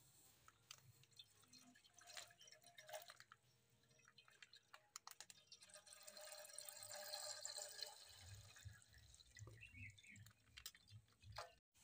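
Milk poured from a plastic pouch into a stainless steel pot, a faint stream of splashing and dripping.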